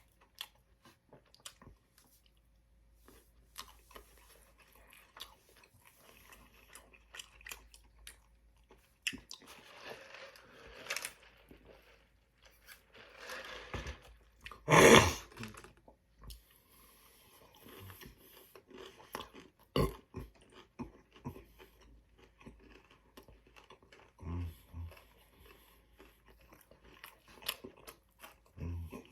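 A man chewing and crunching Chick-fil-A food, with many small crunches and mouth clicks throughout. About halfway through comes a louder sound lasting about a second.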